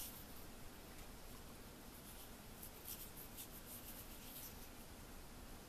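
Near silence: faint room hiss with a few light scratchy rustles of hands handling the stones, mostly between two and four and a half seconds in.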